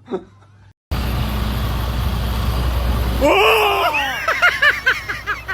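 A loud steady low rumble like an engine or heavy machinery starts about a second in. About two seconds later a person's loud cry sweeps up and falls, then breaks into a rapid run of short rising-and-falling yelps.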